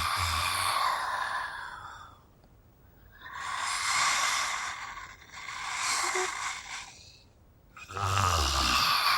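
Mummy sound effect: raspy, breathy groans in four long exhalations separated by short pauses, with a low rumble under the first and the last.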